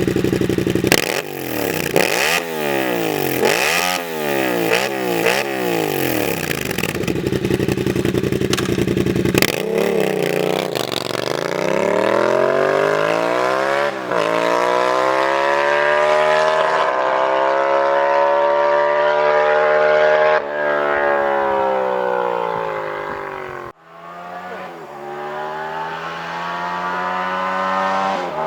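Yamaha MT-07 parallel-twin engine through a full 2-into-1 GP carbon/aluminium exhaust, giving a loud, sporty sound. It idles briefly, is blipped in a quick series of short revs, then is revved up and held high for a long stretch, drops sharply once near the end and revs up again.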